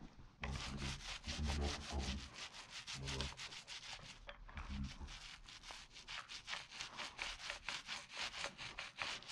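A paint roller loaded with emulsion rolled over a rough concrete wall, making a fast, even run of scraping, rubbing strokes.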